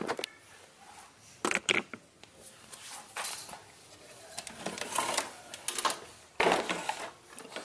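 Irregular clicks, knocks and short rustling bursts of camera handling noise, with the loudest burst about six and a half seconds in.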